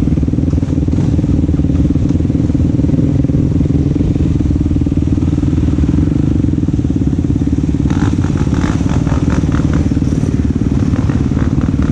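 ATV engine running steadily at an even pitch, with a short run of rapid clattering about eight seconds in.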